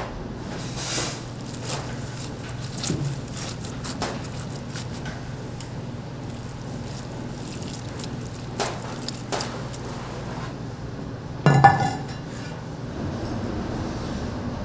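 Dishes and metal utensils clinking and knocking now and then over a steady low kitchen hum, with one louder clatter that rings briefly about eleven and a half seconds in.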